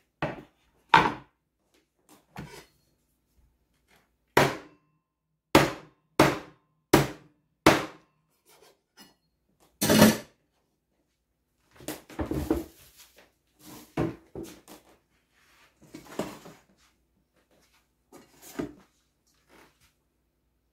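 A bamboo cutting board is set down on a countertop, then come sharp knocks and snips on the wood as chicken toes are cut off with kitchen scissors. The knocks are separate and sharp, about nine in the first half, followed by softer handling and scraping sounds.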